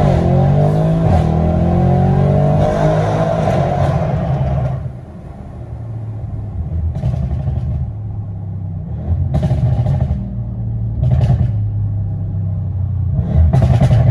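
Audi RS7 C8's twin-turbo V8 with a straight-piped Milltek exhaust (downpipes, particulate filter removed) under full-throttle acceleration, heard inside the cabin, its pitch rising through the gear. About five seconds in the throttle closes and the engine drops to a lower, steadier note, broken by several short, sharp bursts.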